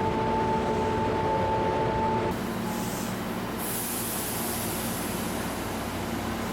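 Hankyu Railway electric train running: a steady rumble with a held whine-like tone that stops abruptly about two seconds in, followed by steady rumble and a high hiss.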